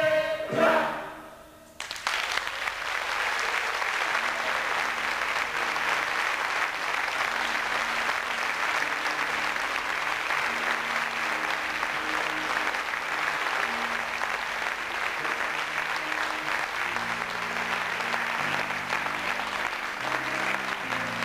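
A choir's held final chord cuts off about a second in; then a theatre audience applauds steadily, with soft music playing underneath.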